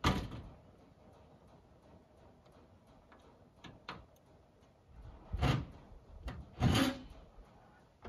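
Knocks and scrapes of metal on a large steel tank's lid as it is worked loose: a sharp knock at the start, two light clicks about four seconds in, and two louder clunks near the end.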